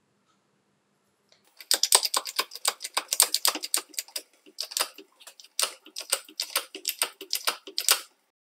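A fast, uneven run of sharp clicks and taps, roughly six to eight a second, starting about a second and a half in and stopping shortly before the end, with brief pauses between runs.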